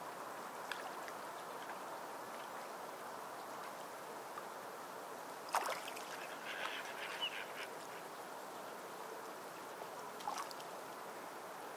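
Fine-tip pen drawing on paper: soft scratchy strokes over a steady hiss, with a few light taps, the sharpest about halfway through.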